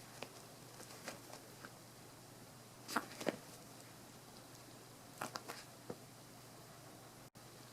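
Scattered soft taps and scuffs over a steady background hiss: a chihuahua moving about, her paws and claws patting and scratching. There is a louder pair of taps about three seconds in and a short cluster a little past five seconds.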